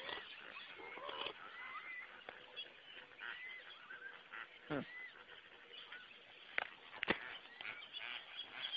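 A flock of waterbirds honking and calling, with many short goose-like calls overlapping, and a few sharp knocks in the second half.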